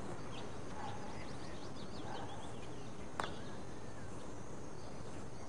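A golf putter strikes the ball once with a sharp click about three seconds in, over steady outdoor course ambience with faint birdsong.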